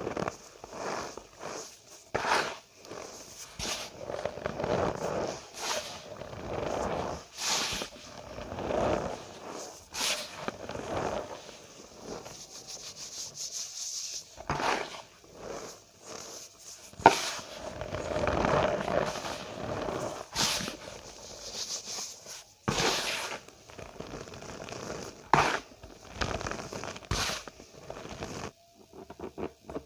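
Cornstarch powder being squeezed and crushed by hand, giving irregular squeaky crunches and crackles with sharp clicks between them.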